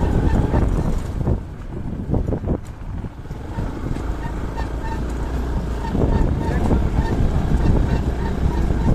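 Motorcycle engine running with wind buffeting the microphone while riding a rough dirt track. The sound drops back from about a second and a half in and rises again about six seconds in.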